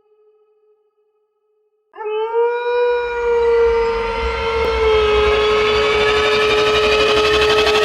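A dog howling: after a brief silence, one long howl begins about two seconds in and holds a nearly steady pitch, with a low rumble under it.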